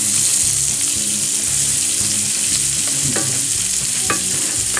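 Bacon and Bimi sizzling in butter in a frying pan, a steady hiss with a few small pops about three and four seconds in.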